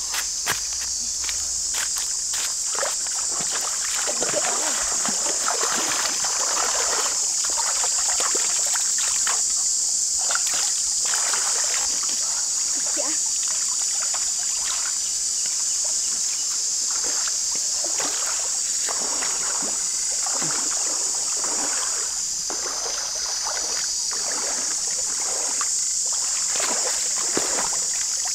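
Splashing and sloshing of shallow river water as people wade and reach into it, in irregular bursts, over a steady high-pitched drone of forest insects.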